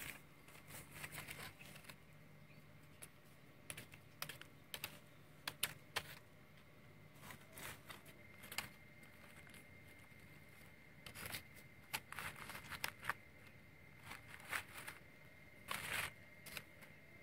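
Irregular light clicks and crackles of a stick scraping and prodding a charred, fire-roasted bundle on fresh leaves, the burnt crust cracking and the leaves rustling under it.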